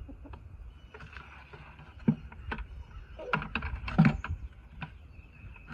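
A plastic 5-gallon bucket with PVC fittings knocking and bumping against a wooden stand as it is set into place: a handful of sharp knocks, the loudest about four seconds in.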